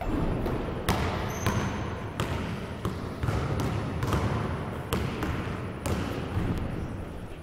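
Basketball being dribbled on an indoor court floor: sharp bounces at an uneven pace, about one or two a second.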